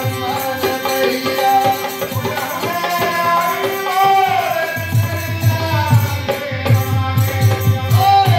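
A Hindu bhajan: a man singing a melody that bends up and down over the harmonium's held notes, with a hand drum beating along. The drumming turns into a quick, steady rhythm about five seconds in.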